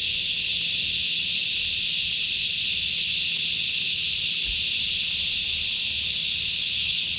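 A dense, steady chorus of cicadas: one constant high-pitched drone without breaks, over a faint low hum.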